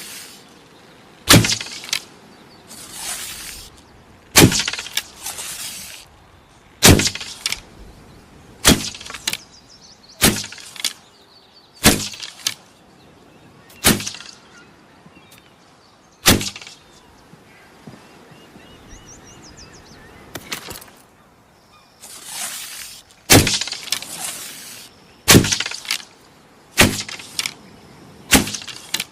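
Bow and arrow being shot again and again: about a dozen sharp snaps or thuds, one every one and a half to two and a half seconds with a longer pause midway, some followed or preceded by a hissing whoosh.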